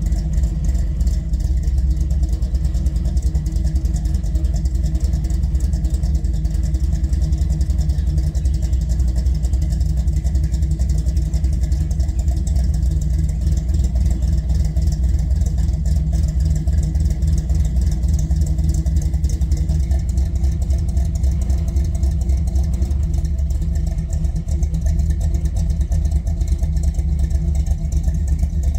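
1967 Chevrolet C10 pickup's engine running at a steady idle, with the truck beginning to roll forward near the end.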